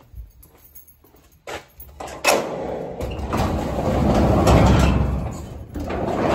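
Sectional overhead garage door rolling up on its tracks: a rumbling, rattling run that starts about two seconds in, is loudest in the middle and swells again near the end, after a few light knocks.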